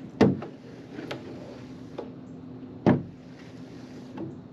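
Knocks and thumps on an aluminium catamaran's deck and cabin side as a person works a squeegee over frosted cabin windows. Two loud knocks come about a quarter second and about three seconds in, with lighter taps between them, over a low steady hum.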